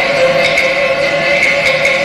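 Peking opera orchestra playing an instrumental passage: long-held melodic tones over a few light percussion strokes.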